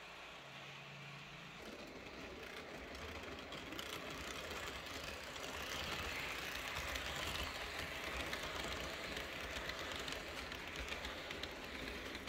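H0 model trains running on the layout's track: the wheels roll and clatter on the rails and the motors rumble. The sound grows louder a few seconds in and is loudest as the coaches pass close by, then eases off near the end.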